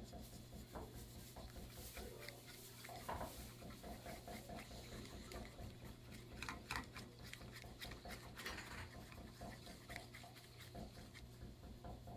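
Chopsticks scraping and tapping against a small frying pan in quick, irregular strokes while beaten egg is stirred and scrambled over low heat for an omelette, over a steady low hum.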